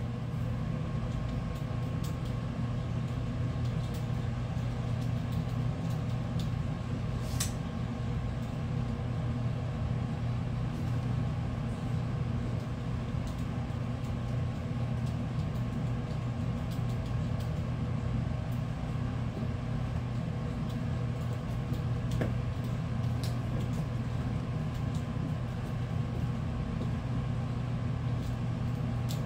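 Steady low mechanical hum, unchanging throughout, with one sharp click about seven and a half seconds in.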